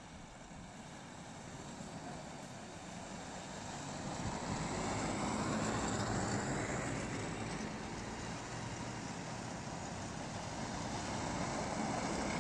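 Electric quad bikes driving over packed snow: a steady running noise that grows louder from about four seconds in as they come closer.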